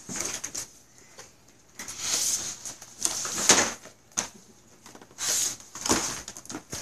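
A cardboard toy box being handled and shifted, with bursts of rustling, scraping and light knocks coming in about five separate bursts.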